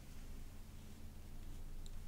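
Quiet room tone: a low steady hum with a few faint ticks near the end.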